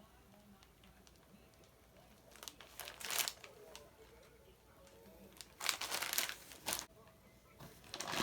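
Plastic candy bag packaging crinkling as the bags are handled and lifted out of a cardboard shipping box, in three short bursts, the last near the end.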